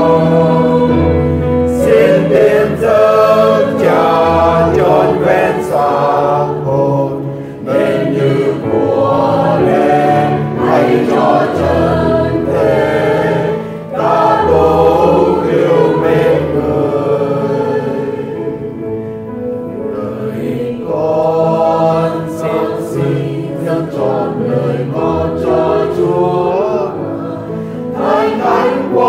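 Choir singing a Vietnamese Catholic offertory hymn with instrumental accompaniment, held notes over low bass notes.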